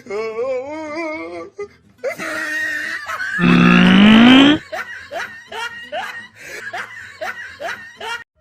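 Laughter over music, with a loud rising cry about halfway through, followed by a quick run of short rising yelps or laughs.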